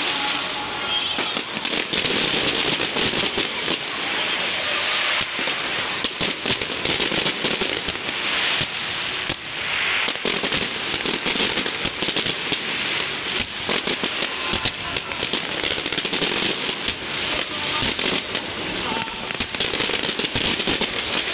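Aerial fireworks going off in a dense, unbroken run of crackling pops and bangs, many per second, over a continuous crackling hiss.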